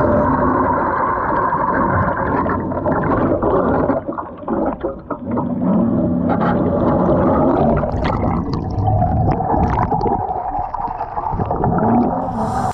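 Muffled underwater sound picked up by a submerged camera at a boat launch: water churning and gurgling with a steady low drone and scattered knocks, loosening briefly about four seconds in.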